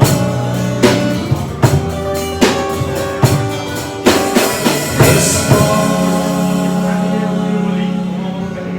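Live band playing a slow ballad ending: a singer with guitars and a drum kit, with drum hits roughly every second for the first five seconds, then a final chord held and ringing out.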